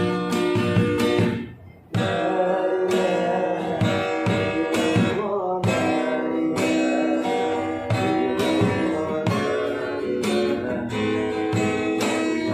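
Acoustic guitar being strummed in chords, with a brief break about a second and a half in before the strumming picks up again.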